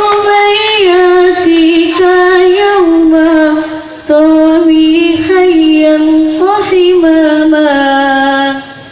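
A high solo voice singing a long, ornamented devotional line in hadroh style, holding each note and stepping down in pitch, with a short break about three and a half seconds in.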